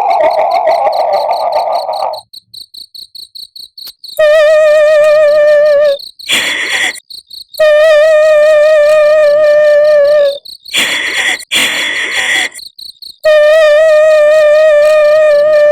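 Horror 'female ghost crying' sound effect. A wavering wailing note is held for two to three seconds, three times over, with short breathy sob-like gasps between, and a falling wail trails off near the start. Steady cricket chirping runs underneath.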